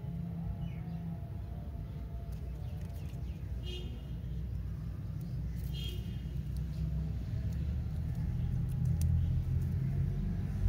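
A steady low rumble, louder toward the end, with a few faint clicks and two brief high chirps about four and six seconds in.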